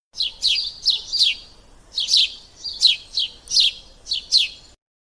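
Sparrow chirping: a series of about eight short, high chirps, each sweeping downward in pitch, irregularly spaced and cutting off suddenly near the end.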